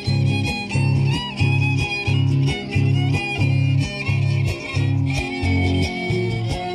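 Fiddle-led dance music with guitar, over a steady bass beat about three times every two seconds.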